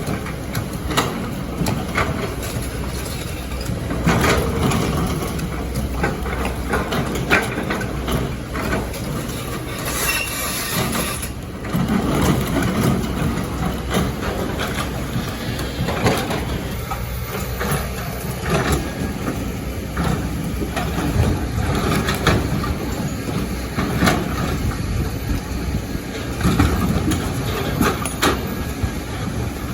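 Excavator's diesel engine running under load, with frequent metal clanks and knocks as the machine works rock and sand.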